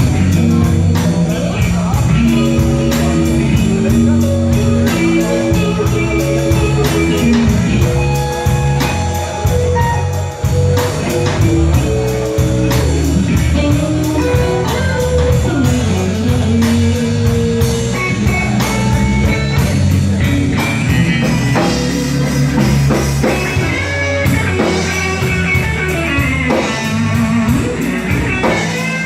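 Blues trio playing live: an electric guitar plays lead lines with bent notes over electric bass and a drum kit, in a slow blues.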